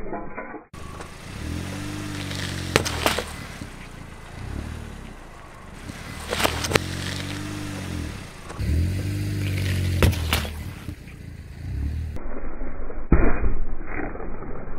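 A car's engine revving up and down three times as it creeps forward, with its tyres crunching over grit on asphalt and scattered sharp clicks. Near the end comes a loud sharp crack and smaller cracks as the wheel bears down on a watermelon.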